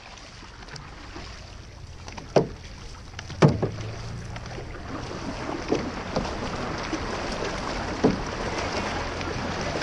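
Six-person outrigger canoe (OC6) under paddle: paddle blades splashing into the water in a few sharp strokes over a steady rush of water and wind, which grows louder about halfway through.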